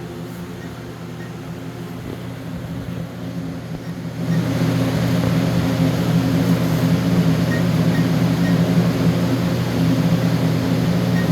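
Steady mechanical hum that gets louder about four seconds in. Faint short high beeps from alarm-keypad buttons being pressed come through now and then.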